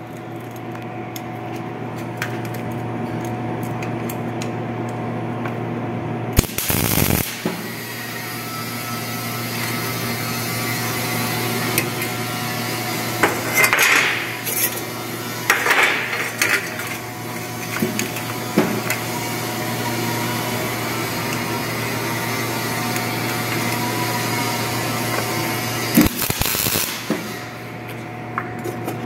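MIG welder tack-welding rolled carbon-steel duct segments of a 90° elbow together, a few short crackling bursts, with clanks of the steel pieces being handled between them, over a steady machine hum.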